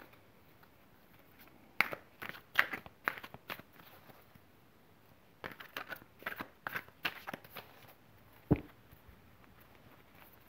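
Tarot cards being shuffled by hand: two bouts of quick clicking slaps, then a single low thump about eight and a half seconds in.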